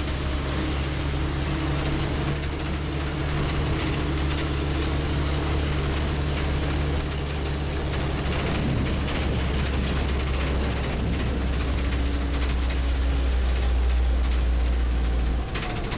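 A moving road vehicle's engine and road noise heard from inside: a steady low engine drone with tyre hiss and occasional rattles. It cuts off abruptly at the end.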